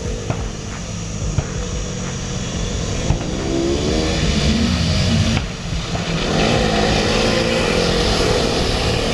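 KTM 390 Adventure's single-cylinder engine pulling under way, its pitch rising as the bike accelerates. The throttle shuts briefly a little past halfway and the engine then pulls again, all over a steady rushing noise.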